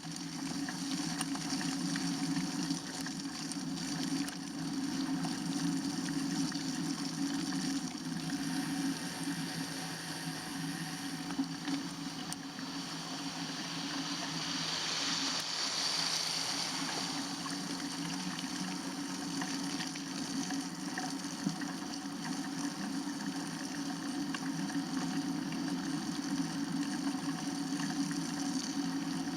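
Steady rushing noise of a bicycle ride: wind on the microphone and tyres on the road, swelling briefly about halfway through.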